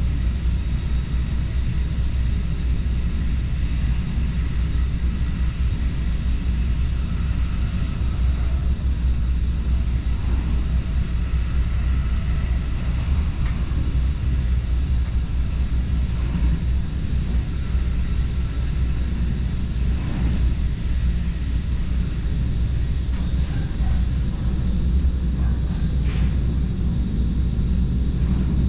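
Steady low rumble of a passenger train running at speed, heard inside the carriage, with a few light clicks now and then.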